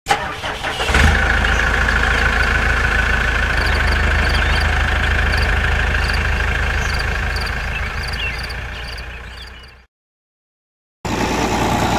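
An engine cranks briefly and catches about a second in, then runs steadily with a deep rumble before fading out, followed by a second of silence. Then the three-cylinder diesel engine of a New Holland Fiat 480 tractor starts up running steadily near the end.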